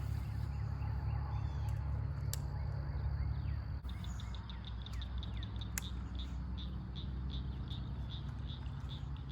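A bird calling in a quick, even series of short high chirps, about four a second, starting about four seconds in, over a steady low rumble.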